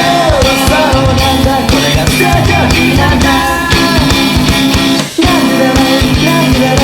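Loud rock music with singing, guitar and drums, with a brief drop-out about five seconds in.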